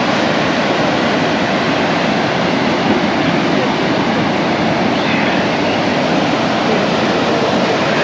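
Steady rush of breaking surf, an even, unbroken noise.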